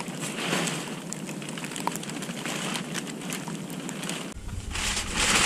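Rustling and crunching from a person moving about in snow, with scattered clicks, getting louder in the last second or so.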